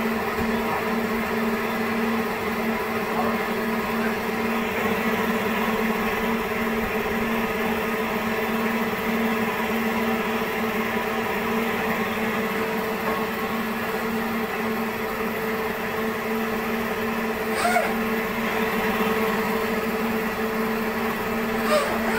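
Steady machine hum with an even low drone, broken by two brief sharp sounds, one about three-quarters of the way through and one near the end.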